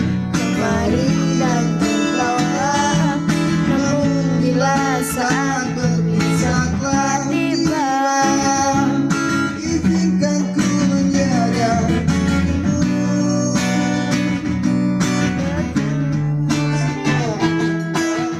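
Guitar music: a melody line that bends in pitch over held low notes that change every second or two.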